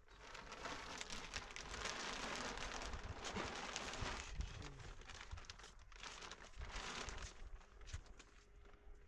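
Rustling and crinkling, a dense run of small crackles that starts suddenly and thins out near the end.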